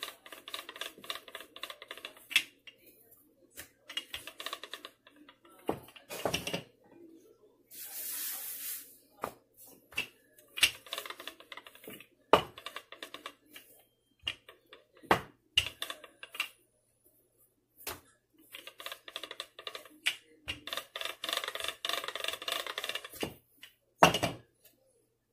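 A wooden rolling pin rolls out samosa dough on a countertop, making a rapid rattling rumble in stretches of a couple of seconds. Sharp knocks come as the pin is set down or bumped on the counter, the loudest near the end. There is a brief hiss about eight seconds in.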